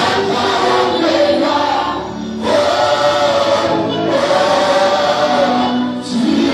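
Choir singing a gospel worship song with band accompaniment, in long held phrases with brief breaths between them, about two seconds in and again near the end.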